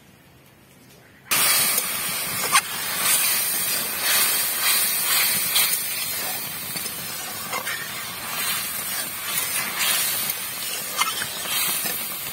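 Quiet at first, then about a second in tomato gravy sizzling and bubbling in a hot metal kadai as a flat metal spatula stirs it. Scattered clicks and scrapes of the spatula against the pan sound through the steady hiss.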